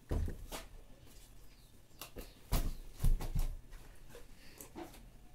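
A big wooden stump being tipped over and shifted by hand on a cement floor: a dull thud right at the start, then three more knocks about two and a half to three and a half seconds in, with lighter scraping and knocking between.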